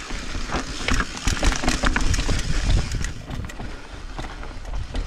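Trek Slash mountain bike running down a rough dirt trail: a low rumble of tyres over dirt with rapid clicks and knocks from the bike rattling over roots and bumps, rougher over the first three seconds and easing near the end.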